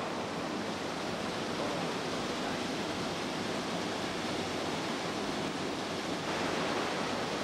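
Steady rushing of flowing water in a rocky river pool, an even hiss that grows a little brighter about six seconds in.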